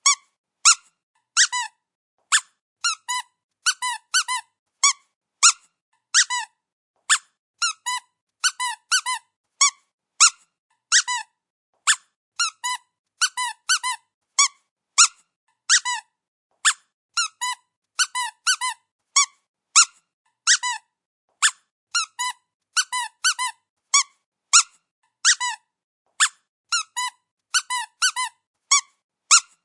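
Rubber squeaky dog toy squeezed over and over, giving short high squeaks, singly or in quick runs of two to four, each with a little drop in pitch at the end.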